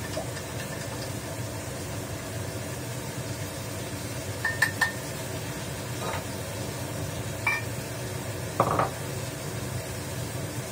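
Steady low hum of a running kitchen range hood, with a handful of sharp, ringing clinks of utensils against a porcelain cup and the wok through the middle of the stretch, two close together near the middle and the loudest a little later.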